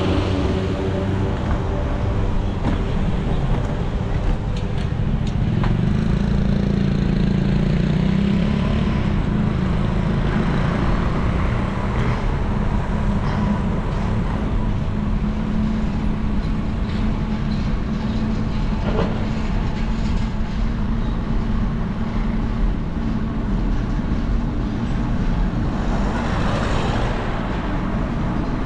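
Steady motor-vehicle noise: a continuous low engine hum under road and traffic noise.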